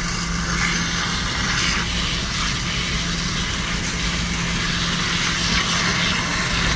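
A stream of water spraying steadily onto the fins of a refrigerated produce case's evaporator coil and splashing into the case pan: a continuous hiss and splatter as the coil is washed, with a steady low hum underneath.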